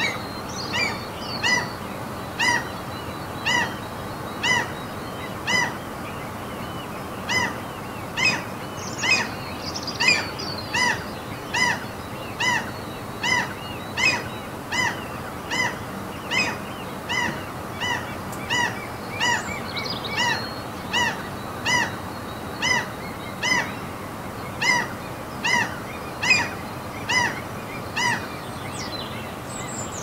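A seagull calling over and over in a long even series of short, clear calls, about one a second, over a steady background hiss.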